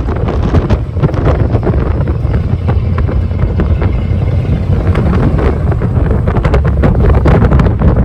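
1982 Ford F-150's 302 V8 rumbling through a 3 to 4 inch step exhaust while the truck is driven, with wind buffeting the microphone. It gets a little louder near the end.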